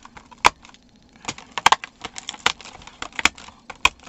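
Advent calendar doors of a safety-eye advent box being popped open by hand one after another, making a quick, irregular string of sharp clicks and cracks.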